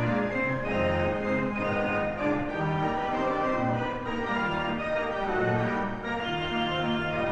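Background music of slow, held chords, with the notes changing about once a second.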